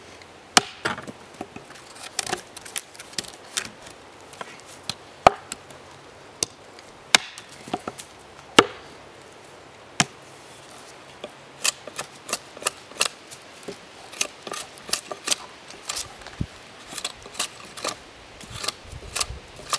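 Small wooden-handled axe chopping into a thin branch laid on a stump: sharp knocks of the blade biting into the wood. The strokes are irregular and spaced out at first, then come faster, about two a second, in the second half.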